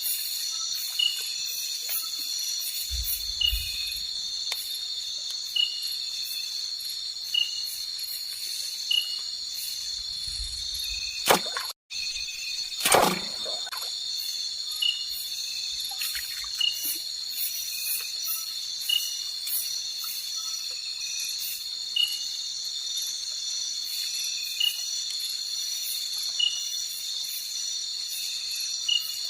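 Steady high-pitched chorus of crickets and other forest insects, with a short chirping call repeating about every second and a half to two seconds. Two brief knocks fall around the middle, and the sound cuts out for an instant between them.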